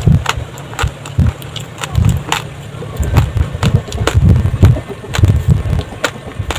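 Close-miked chewing of raw glutinous rice: hard grains cracking in sharp, irregular crunches over low, uneven chewing thuds.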